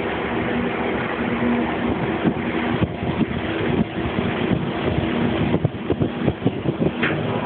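Steady machinery hum aboard a dive support vessel, made of a constant hiss with a few steady pitched tones through it. Several short knocks come near the end.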